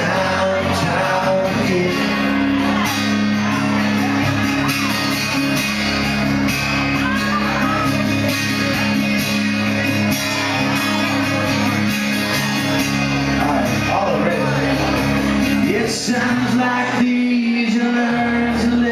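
Live rock music with a singer, and the audience shouting along in a reverberant hall.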